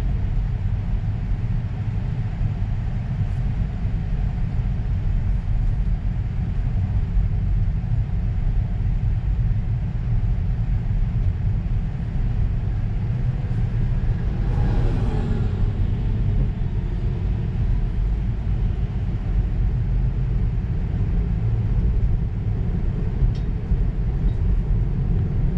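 Steady low tyre and road rumble of an electric car driving, with no engine note. About halfway through, an oncoming vehicle passes, its sound falling in pitch as it goes by.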